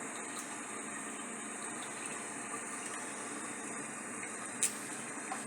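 Steady kitchen background noise, an even hiss with no clear pattern, with one sharp click a little over four seconds in.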